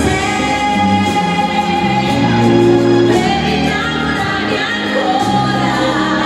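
Ballroom dance music with a singing voice, played loud and without a break.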